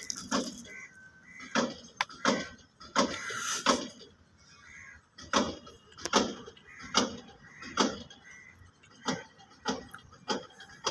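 A person chewing a bite of egg puff pastry close to the microphone: a short crunchy mouth sound with each chew, about one every three-quarters of a second.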